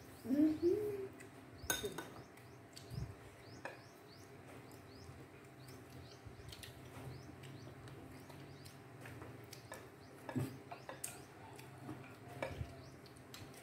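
Chopsticks and spoons clicking now and then against ceramic bowls during a meal, with a short hum from a voice right at the start. Faint high chirping runs throughout.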